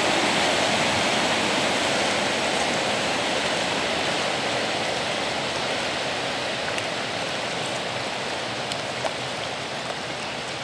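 Steady rushing and churning water from an inland cargo ship's propeller wash and stern wake, slowly fading as the ship moves away.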